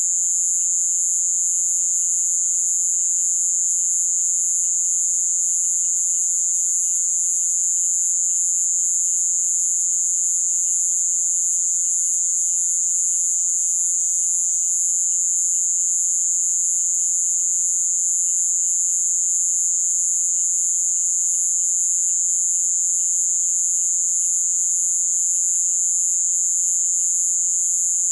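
Nighttime Amazon rainforest chorus of insects and frogs: a loud, steady, high-pitched insect drone dominates without a break, with fainter rapid trilling calls at lower pitches beneath it.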